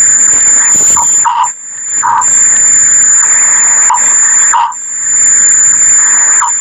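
Loud, harshly distorted edited logo soundtrack: a steady shrill high tone over a harsh noise wash, broken by short blips a few times.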